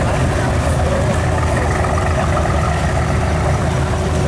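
A boat's engine running steadily at low speed with an even, low throb.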